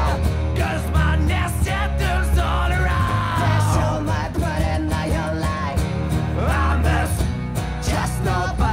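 Two acoustic guitars strummed in a steady rhythm under two male voices singing a melody with no clear words.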